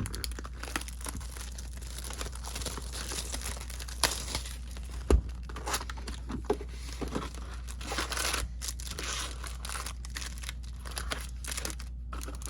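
Plastic wrapping crinkling and tearing as a trading-card box and its packs are opened, with a sharp knock about five seconds in.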